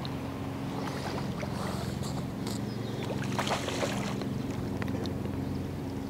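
A steady, low motor hum, like a distant engine running, with a few faint brief rustles over it.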